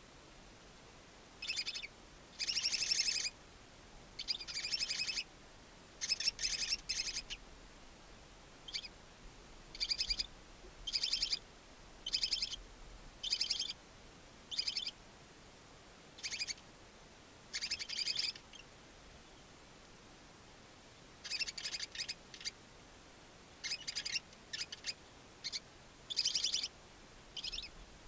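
Newly hatched barn owl chicks giving short, high, pulsing calls over and over, roughly one a second, with a pause of a couple of seconds about two-thirds of the way through.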